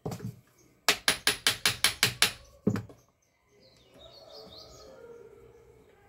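Reassembled standing-fan motor clicking as its shaft is worked back and forth by hand to check for play: a quick run of about nine sharp clicks, then one more. The shaft shows no play.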